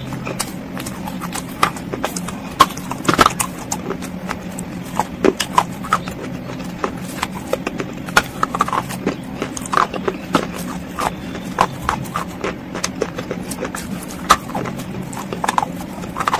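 Close-miked chewing: a person crunching a hard, brittle chunk with her mouth closed, a steady run of sharp, irregular crunches over a low steady hum.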